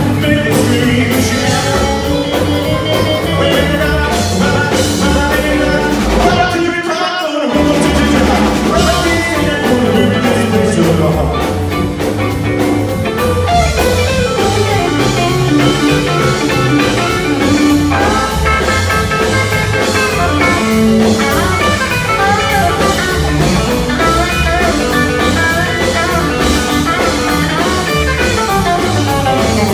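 Rockabilly band playing live: upright bass, drum kit, piano and electric guitar. About seven seconds in, the band stops briefly while a note slides downward, then the band comes back in.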